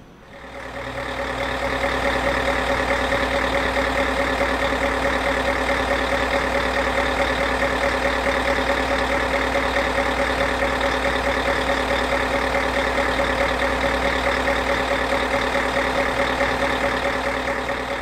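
An engine running steadily at idle, fading in over the first couple of seconds and fading out at the end.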